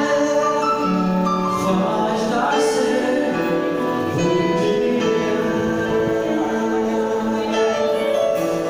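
Live gospel band playing: keyboards and synth pads holding chords over bass, drums and guitars, with cymbal hits.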